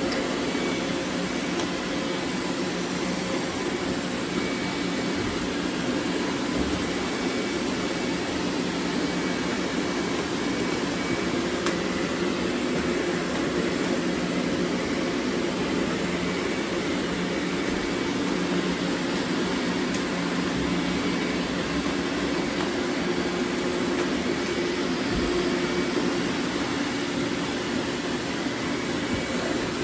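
Several robot vacuums running at once: a steady hum of their motors and brushes.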